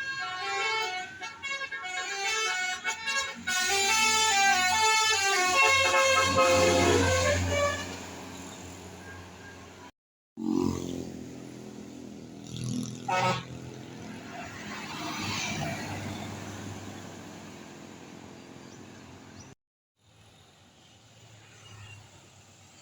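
Tour bus 'telolet' multi-tone horn playing a quick melody of several tones stepping up and down, over the bus's engine, for the first several seconds. After a short gap, a bus engine runs and fades away, with a single sharp click in the middle.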